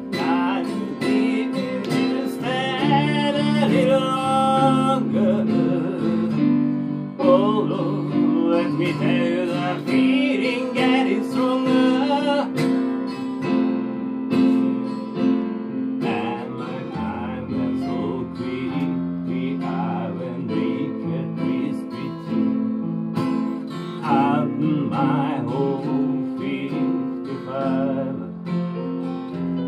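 Live acoustic duo: a steel-string acoustic guitar strummed with an electric keyboard playing along, and a sung vocal line over stretches of it.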